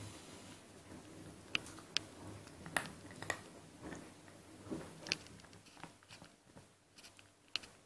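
Maltese puppy chewing and gnawing a chew bone, its teeth giving a few sharp, irregular clicks against the toy over soft rustling of the fleece bed.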